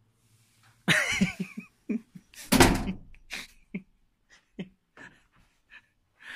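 A brief vocal cry with wavering pitch about a second in, then a loud thump, followed by scattered light knocks and clicks from handling.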